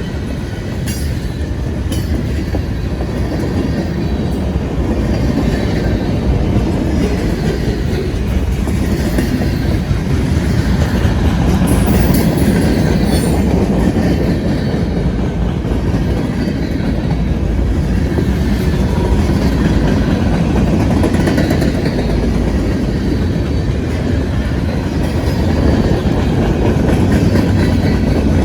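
CSX freight train rolling past at close range: a steady rumble of wheels on rail with the clickety-clack of railcars going by. A few short, high squeaks come about a second in and again around twelve seconds in.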